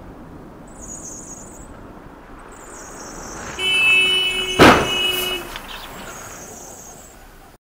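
A car horn sounds for about two seconds, and about a second into it comes a single loud bang: the impact of one car striking the side of an SUV.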